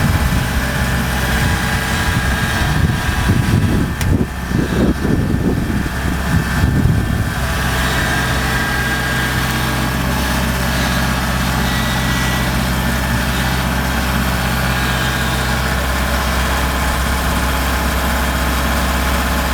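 Kubota DC70 rice combine harvester's diesel engine running. Uneven for about the first seven seconds, then settling into a steady, even hum.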